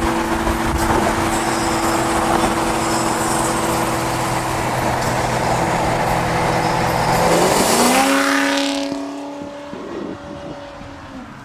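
Car engine running loud and steady, then revving up with a sharply rising pitch about eight seconds in, after which the sound drops off as the car pulls away.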